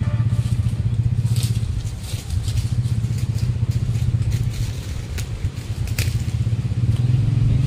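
A steady low engine drone, like a small engine running at idle, with a few sharp clicks over it.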